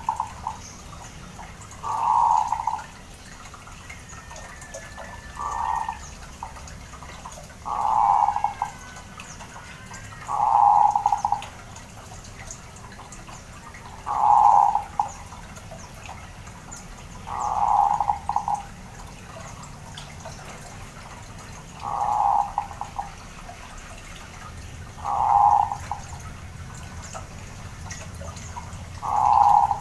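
Zebra dove (perkutut) calling: short cooing phrases, each under a second, repeated about every three to four seconds.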